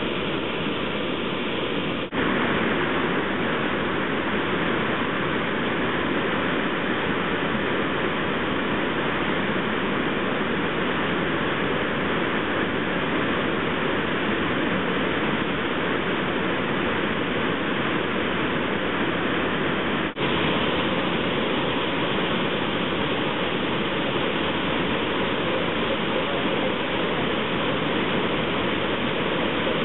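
Steady rushing roar of a river waterfall and its white-water rapids, with two momentary drop-outs, about two seconds in and again about twenty seconds in.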